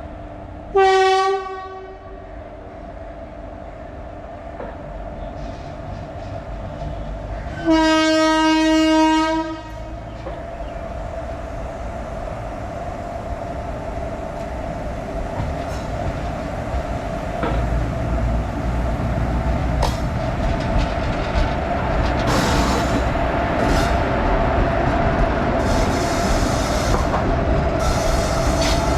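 Two coupled WAG-7 electric locomotives running light: the horn sounds twice, a short blast about a second in and a longer one around eight seconds. Then a steady whirring from the locomotives builds as they draw closer, with the wheels clicking over rail joints near the end.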